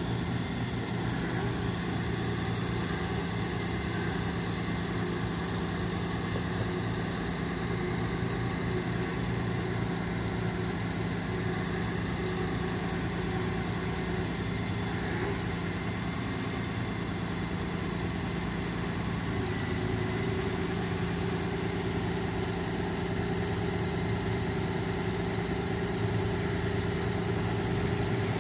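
Ford F-750 bucket truck's engine idling steadily while the hydraulic aerial boom and the chip dump body are worked; the tone shifts slightly about two-thirds of the way through.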